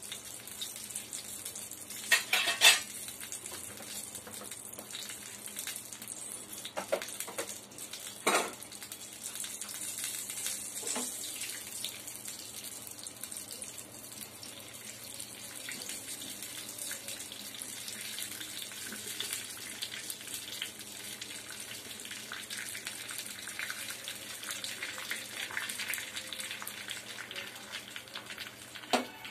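Broken cashew nuts sizzling in hot ghee in a pan: a steady frying hiss, with a few sharp clinks of a utensil against the pan about two and eight seconds in.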